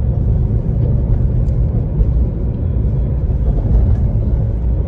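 Steady low rumble of a car on the move, heard from inside the cabin.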